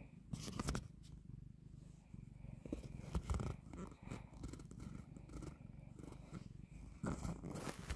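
Tabby cat purring close to the microphone, a steady low pulsing rumble. Brief rustling scrapes come about half a second in and again near the end.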